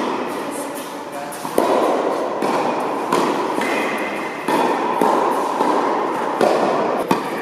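Background music, with a few sharp knocks of a tennis racket striking the ball.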